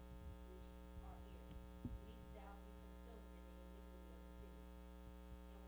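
Steady electrical mains hum, with a woman's voice faintly reading aloud behind it and a soft thump just under two seconds in.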